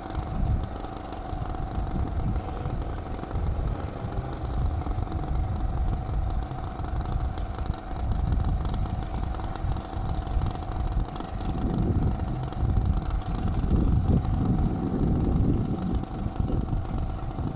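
Tractor engine running steadily, with a louder, uneven low rumble in the last few seconds.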